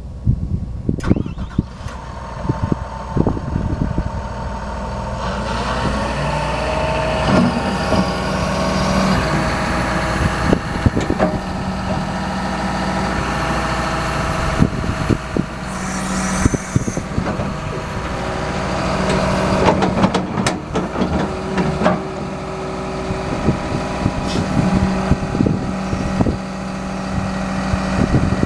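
John Deere 210G LC excavator's diesel engine running, picking up speed and getting louder about five to eight seconds in, then holding steady, with scattered knocks and clanks.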